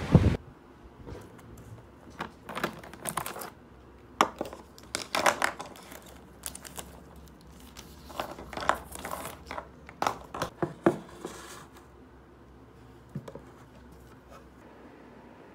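Irregular crinkling and rustling of plastic sleeves and papers, with light clicks and knocks, as stationery is lifted out of a plastic desk organizer bin; it quietens after about twelve seconds. A short burst of wind on the microphone cuts off right at the start.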